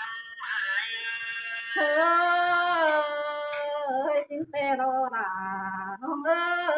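A woman singing a slow melody in long held notes that waver and slide down at the ends of phrases.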